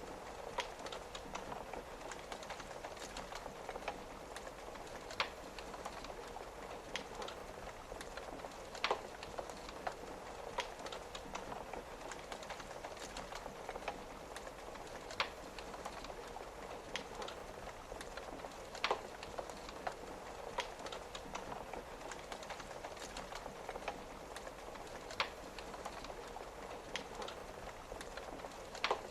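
Wood fire crackling, with scattered sharp pops every few seconds, over a steady patter of rain on a window.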